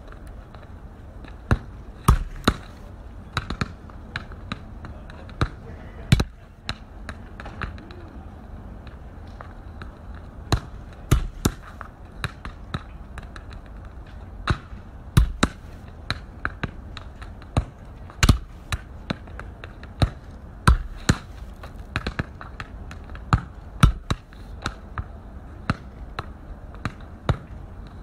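A football being kicked and juggled on hard pavement: irregular sharp thumps of foot on ball and ball bouncing on the ground, over a steady background hiss.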